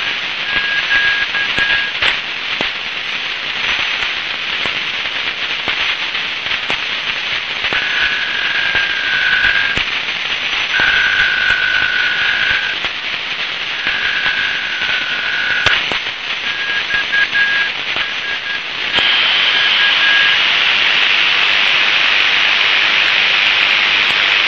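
Tecsun PL-680 shortwave receiver in SSB mode, tuned to Guangzhou maritime radio on 8417.5 kHz: steady static hiss with a thin tone signal that keys on and off, at times as two close tones warbling together. About 19 seconds in, the hiss becomes louder and brighter.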